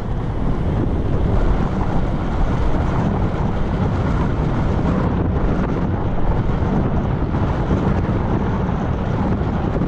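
Wind buffeting the microphone of a camera riding on a moving bicycle: a steady low rumble with hiss above it.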